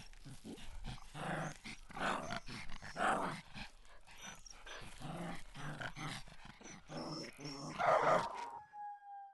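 Dogs barking, yapping and growling in a quick run of calls, loudest at about three seconds and eight seconds in, ending in a short falling whine.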